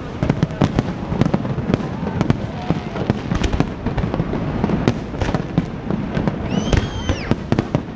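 Aerial fireworks display: a dense, continuous run of bangs and crackling bursts, with a few short whistles about seven seconds in.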